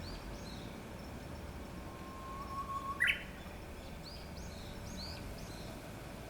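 Japanese bush warbler singing its 'hō-hokekyo' song: a long level whistle about two seconds in that breaks into a loud, sharp higher flourish. Faint high arched chirps come just before it and again a second or so after.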